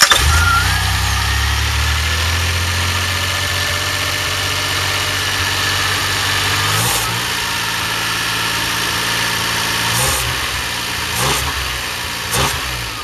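DeLorean PRV V6 engine running just after starting on a freshly installed distributor, its ignition timing set only roughly and still a couple of degrees off. It runs at a steady fast idle, drops in speed about halfway through, and has a few short louder bursts near the end.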